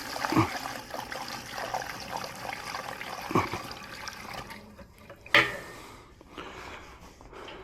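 Gasoline being poured into a lawn mower's fuel tank, a steady pour for about four and a half seconds, then a sharp knock about five seconds in.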